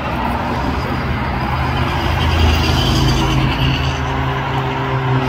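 Loud city road traffic: cars driving past on a multi-lane avenue, a steady engine hum with tyre noise.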